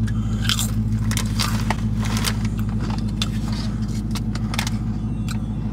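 Crunching of potato chips being bitten and chewed, heard as many short sharp crackles, over the steady low hum of a car inside its cabin.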